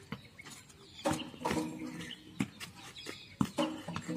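Wooden cricket bats hitting a shuttlecock back and forth in a rally: sharp knocks every second or so, with short low calls in between.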